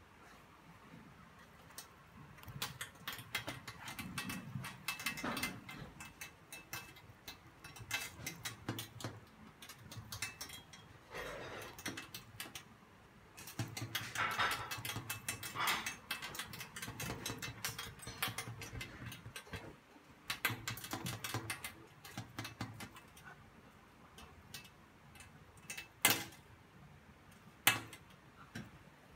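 Beagle puppy pawing and scrabbling at a glass table after dangled teddy-bear keyrings: scattered clicks and taps of claws on glass and the keyrings' metal rings clinking, with two sharp knocks near the end.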